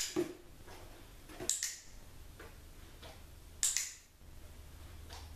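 Australian Shepherd puppy's paws tapping and stepping on a cardboard box: three sharp clicks, roughly two seconds apart, with softer taps between them.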